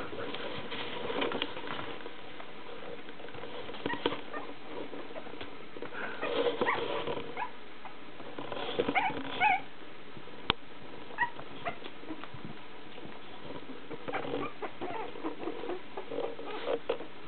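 Young puppies squeaking and whimpering now and then as they tumble and play-fight, with soft scuffling throughout and one sharp click about ten seconds in.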